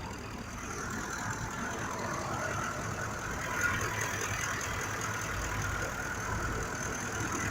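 2005 Ford F-150's 5.4 L V8 engine idling steadily, with a misfire in cylinder 2 that the mechanic believes is a failing injector.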